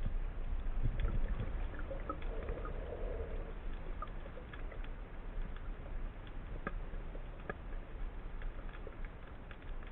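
Underwater ambience heard through a camera housing: a steady low rumble of moving water with scattered faint clicks and crackles. There is a brief bubbling gurgle from about two to three and a half seconds in.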